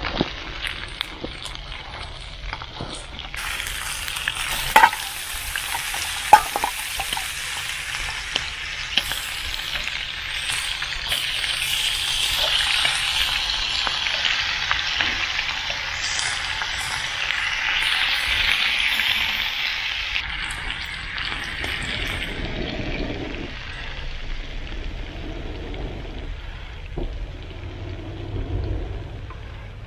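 Sausages and green peppers sizzling in a frying pan over a wood-fired hobo stove, turned over partway through. The sizzle is loudest in the middle, and two sharp knocks come about five and six seconds in.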